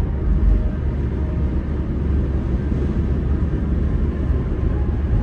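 Car driving along a road: a steady low rumble of tyre, engine and wind noise with no sudden events.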